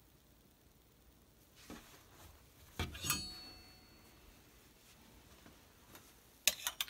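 Clothes hangers clinking on a clothing rack rail. A few light knocks, one about three seconds in that rings briefly, and a quick run of clicks near the end.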